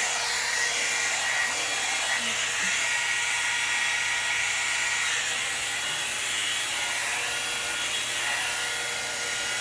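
Hot-air blow dryer brush running steadily: a rush of air over a thin, even motor whine.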